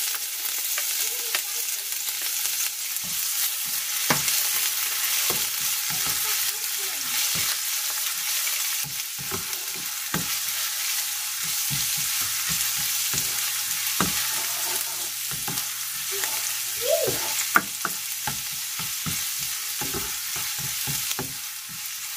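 Minced garlic and ginger sizzling in hot oil in a wok, with a steady hiss, while a cooking spoon stirs them and knocks and scrapes against the pan again and again.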